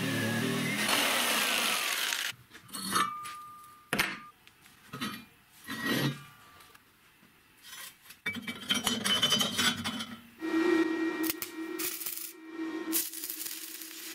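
Electric jigsaw cutting through steel square tube for about two seconds, then several separate metal knocks and clanks as the steel parts are handled and fitted. From about eight seconds in, arc-welding crackle and hiss, with a steady hum joining about ten seconds in.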